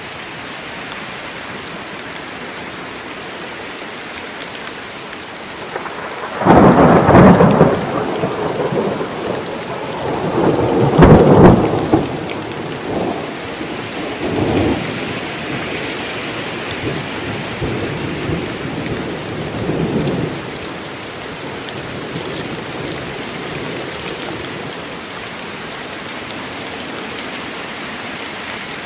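Heavy forest rain falling steadily. A loud thunderclap breaks in after several seconds and a second crash follows a few seconds later, then the rumble dies away and leaves the rain alone.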